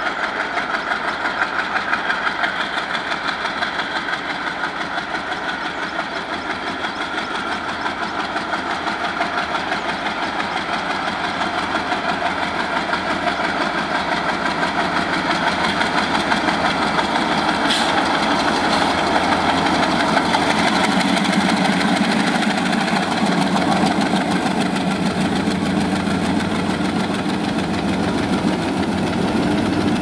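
Twin WDM3D ALCO diesel-electric locomotives hauling a freight train, their diesel engines chugging steadily under power. The sound grows louder as the locomotives draw near and pass.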